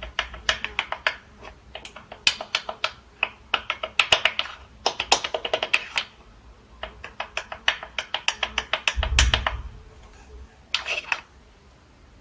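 Ratchet wrench clicking in quick runs of one to two seconds, several clicks a second, as a fastener is turned. A low thump comes about nine seconds in.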